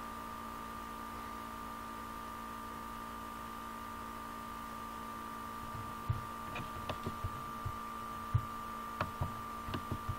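Steady electrical hum with several constant tones. From about six seconds in, a scatter of short, soft knocks and a few sharp clicks.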